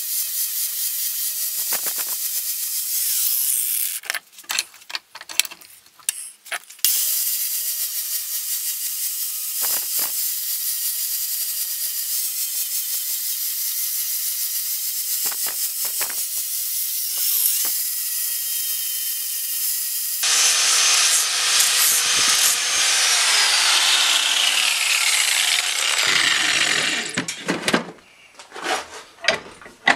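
Angle grinder with a flap disc grinding the chamfered edge of a steel club hammer head: a steady high whine with a hiss, broken a few times as the disc is lifted off the steel. About 20 s in the sound changes and the motor winds down with a falling pitch, leaving a few knocks near the end.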